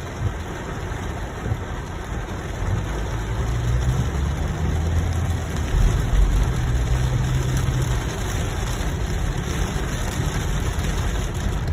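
Car cabin sound while driving through heavy rain and flood water: rain on the car and tyres through water make a steady noise, over a low engine and road rumble that grows louder for a few seconds midway.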